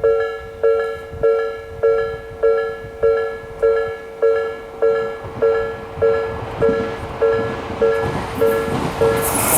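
Japanese railway level-crossing alarm: the slow-tempo Nikko Line type electronic bell, dinging steadily a little under twice a second. Near the end the running noise of an approaching Tokyo Metro 13000 series train rises under the bell.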